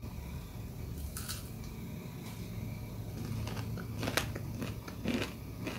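A crispy paruppu vadai (chana dal fritter) being bitten into and chewed, with several scattered crunches, the loudest a little after the midpoint.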